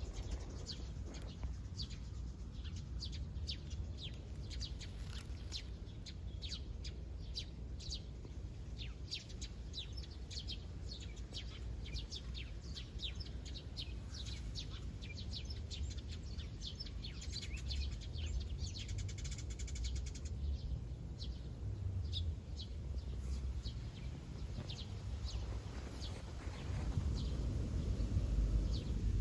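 Small birds chirping over and over in short, high calls, with a low steady rumble underneath that grows a little near the end.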